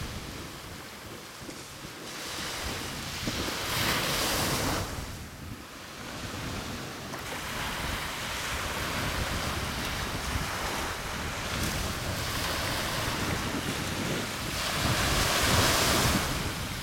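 Surf washing on the shore, swelling louder twice, about four seconds in and again near the end, with wind rumbling on the microphone.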